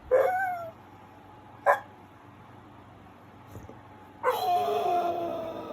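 A dog vocalizing: a short pitched whine that rises and falls at the start, a sharp yip about a second and a half later, then from about four seconds in one long drawn-out moaning call that slowly falls in pitch.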